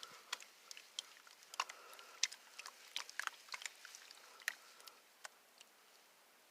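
Gravel and sand concentrates clicking and scraping against the riffles of a plastic spiral gold pan as it is swirled: faint, irregular gritty ticks that die away about five seconds in.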